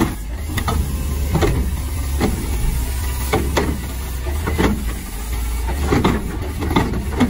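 Front-loading garbage truck with its diesel engine running steadily while its automated arm tips a wheeled cart over the hopper, with a series of knocks and clatter as the trash drops in.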